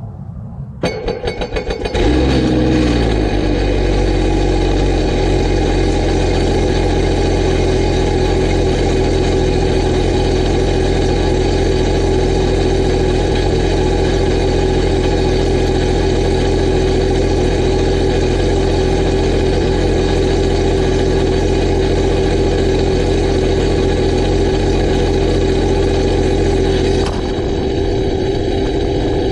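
BRP Rotax jet-boat engine cranked by its starter for about a second, catching about two seconds in and then idling steadily to warm up, run out of the water to clear leftover raw water from the exhaust. The level drops slightly near the end.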